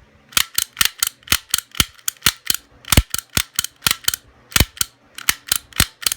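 Sparrows tap gun snapping over and over, about four sharp clicks a second with a brief pause about five seconds in, its needle knocking the padlock's pin stacks to bounce them up to the shear line; the lock has not opened yet.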